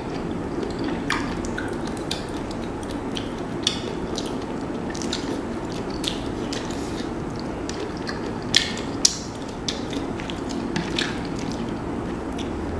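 Close-up eating sounds of a seafood boil: boiled shrimp shells peeled by hand, with wet, sticky finger and mouth noises and chewing. These come as scattered small clicks and crackles, two sharper ones about two-thirds of the way through, over a steady low hum.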